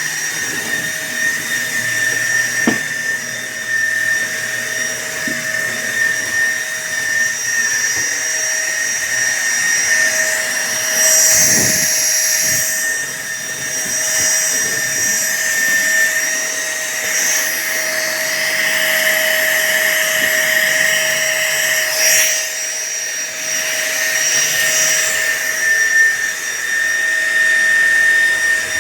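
SunSare cordless stick vacuum cleaner running, a steady high motor whine over rushing air, with brief surges in the airflow sound about halfway through and again about two-thirds of the way in.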